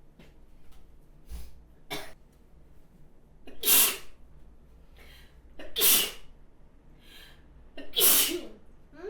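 A person sneezing three times, about two seconds apart, each sneeze a loud burst, with fainter breaths between them.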